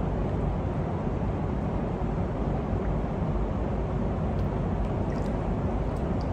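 Steady low rumbling ambient noise of an indoor swimming pool hall, with water stirred by someone wading, and a few faint ticks in the second half.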